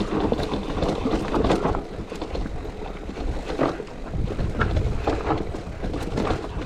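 Enduro mountain bike descending a rough technical trail: a steady rumble of tyres on rocky ground, broken by frequent irregular knocks and rattles from the bike, with wind noise on the microphone.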